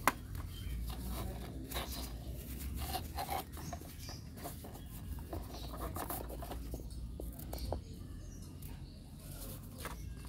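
Scratchy rustling and light clicks from hands handling a headlamp's elastic headband and its plastic packaging, with one sharp click just after the start, over a steady low rumble.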